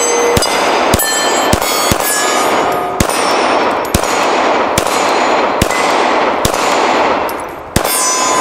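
A 9mm Glock 19 Gen 5 pistol fired in a steady string of shots, about one to two a second, with steel targets clanging and ringing after hits.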